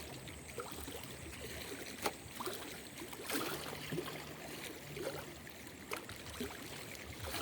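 River water running and trickling, with a faint low hum that comes and goes and a sharp knock about two seconds in.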